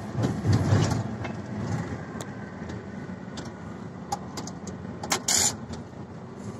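BelAZ 45-tonne mining dump truck's diesel engine running as the truck drives, heard from inside the cab as a steady low rumble, loudest in the first second. Short rattles and clicks come from the cab, and there is a brief hiss about five seconds in.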